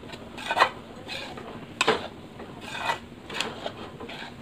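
Steel spatula scraping the bottom of a kadhai while stirring wheat flour roasting in ghee, in irregular rasping strokes about once a second.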